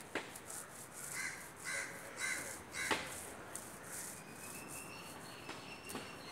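A crow cawing four times in quick succession, about half a second apart, with a few sharp knocks, the loudest about three seconds in. A faint thin high whistle runs through the second half.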